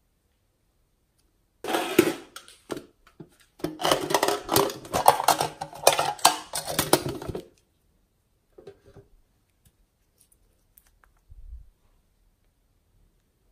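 Plastic case handled close to the microphone: a dense run of clicks, rattles and rustles for about six seconds, then only a few faint taps.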